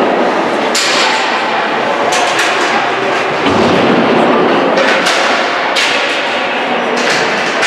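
Hockey pucks cracking off the rink boards and glass, about eight sharp hits, over a steady din of skates and sticks on the ice echoing in the rink.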